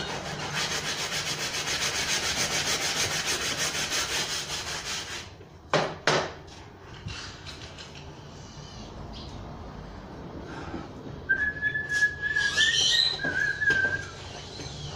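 Fast, even scrubbing of a cloth car seat's upholstery for about five seconds, followed by two sharp knocks. Later a whistled note is held for a couple of seconds near the end, over more scrubbing and handling noise.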